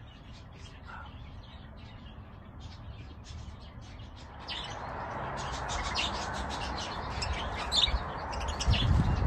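A flock of budgerigars chirping and chattering in many short high calls, growing louder and busier about halfway through over a steady rushing noise. A few low thumps near the end.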